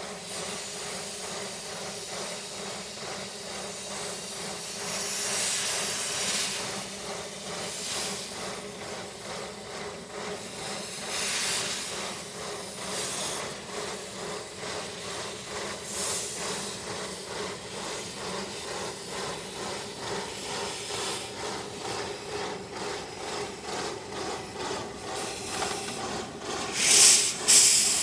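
1935 Orenstein & Koppel 0-4-0 narrow-gauge steam locomotive pulling away, with steam hissing from low at its cylinders over a steady rhythm of exhaust chuffs. Several stronger blasts of steam come and go, and the loudest is near the end.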